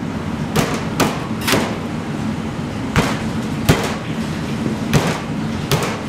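A stainless steel meat pounder striking beef medallions on a plastic cutting board, flattening them into steaks: about seven thuds at an uneven pace.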